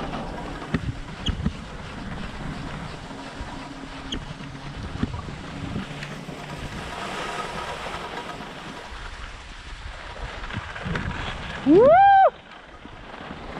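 Skis sliding over packed snow with wind on the microphone while being towed up a button drag lift, with scattered light clicks. About twelve seconds in, a loud rising yell from a person cuts in for about half a second.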